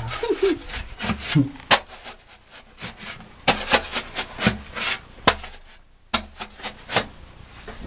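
Digging at the bottom of a diamond-mining pit: irregular knocks and scrapes of a hand tool against gravel and stone, coming singly and in quick pairs at no steady rhythm.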